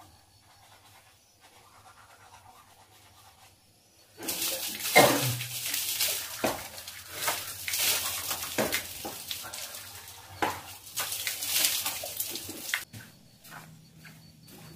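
Tap water pouring and splashing onto a tiled washroom floor as a man rinses his mouth and face with cupped hands, with irregular splashes; it starts about four seconds in and cuts off suddenly near the end.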